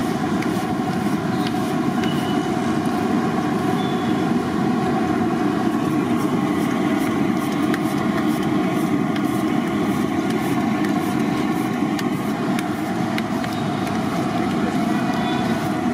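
Steady low roar of the burner under a large kadai of frying oil, with faint crackles from the hot oil.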